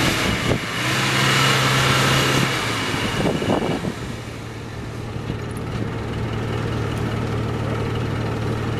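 Land Rover Defender 110's engine pulling at low revs as it crawls over a muddy track. About two and a half seconds in the revs ease off, and it then runs steadily at lower revs.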